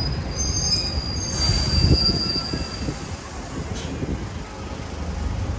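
A high-pitched metallic squeal lasting about two and a half seconds, over the low, steady rumble of city traffic.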